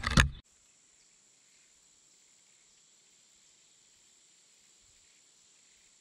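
The end of a music track, fading out in the first half-second, then near silence with only a faint, steady high hiss.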